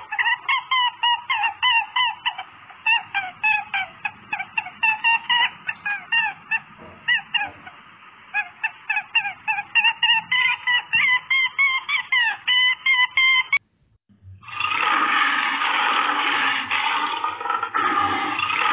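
A flock of fowl calling over and over, several honking calls a second with many birds overlapping. It cuts off at about 13.5 s, and after a short gap a steady rushing noise starts.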